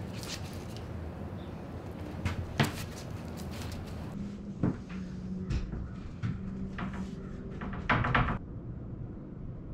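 Workshop handling noises: a few knocks and clatters of wood and tools as epoxy is brushed onto the laminations, the loudest a short clattering burst about eight seconds in, over a steady low hum.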